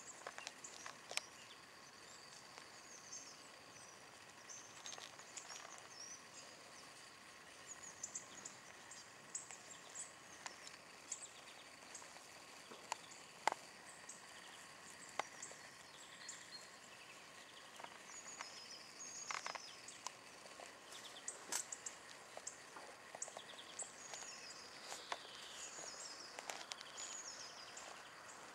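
Small birds chirping and calling faintly, many short high notes scattered throughout, with occasional sharp clicks.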